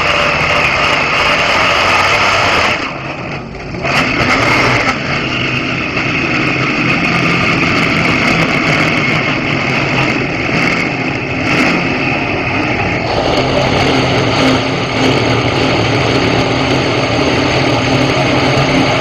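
Race car engine heard from inside the cockpit, running under load on a dirt track, with a short lift of the throttle about three seconds in before it picks up again.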